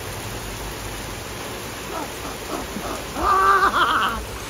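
Steady rain falling. About three seconds in, a man lets out a loud, drawn-out yell lasting about a second.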